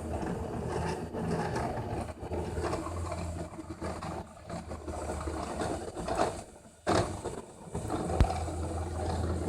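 New Matter MOD-t desktop 3D printer running a print, its stepper motors whirring and buzzing over a steady low hum. The sound nearly drops away about two-thirds of the way through, and there is one sharp click near the end.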